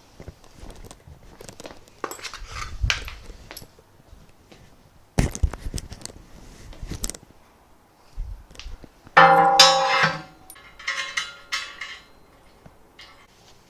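Knocks and clatter from handling 3D printer kit parts and packaging, with a sharp knock about five seconds in and a loud squeal just after nine seconds.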